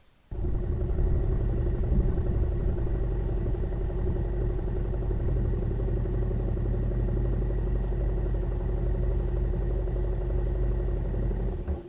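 A vehicle engine idling steadily with a deep, even hum. It cuts in abruptly just after the start and cuts off abruptly shortly before the end.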